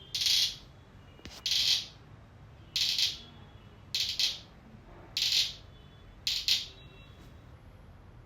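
Six short bursts of clicking from a handmade clicking-noise toy, one about every 1.2 seconds, each starting sharply and dying away within half a second.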